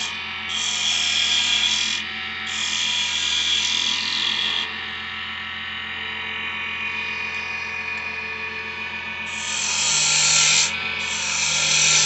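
Wood lathe running with a steady motor hum while a turning tool cuts a spinning cedar blank in loud hissing passes. There are two passes in the first few seconds, a stretch in the middle with only the lathe turning, and two more passes near the end.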